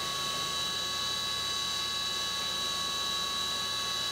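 CNC milling machine drilling a small hole with a No. 28 carbide drill under flood coolant: a steady high-pitched spindle whine over an even hiss of coolant spray.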